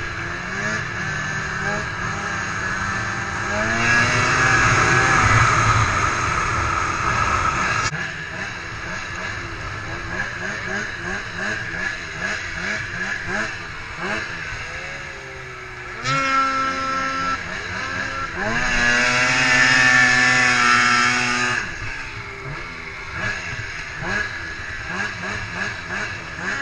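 Two-stroke snowmobile engine revving up and down over and over, rising to louder, high-revving runs about four seconds in and again around sixteen to twenty-one seconds.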